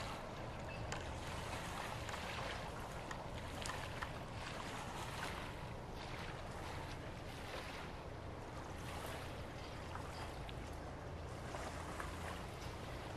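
Low, steady drone of a large pure car and truck carrier's engine as the ship passes close by, with an even hiss over it and a few faint clicks.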